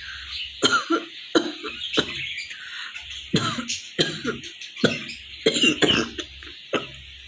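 A woman coughing hard and repeatedly, about a dozen coughs in irregular bursts, over steady high chirping in the background.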